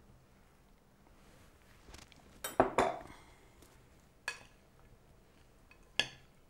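Ceramic kitchenware and utensils clinking on a kitchen counter: two sharp knocks close together about two and a half seconds in, then single clinks near the middle and near the end.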